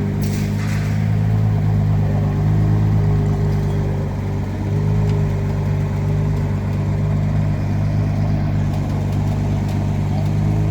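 Ferrari Daytona SP3's 6.5-litre V12 running at a steady, even engine speed.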